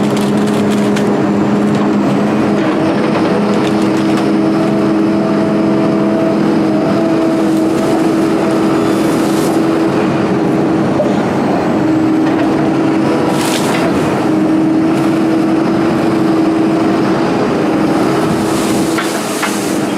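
240D excavator's diesel engine running steadily under hydraulic load, its pitch shifting a little as the machine works, with a few short knocks and clunks of material being handled, one about two thirds of the way in and more near the end.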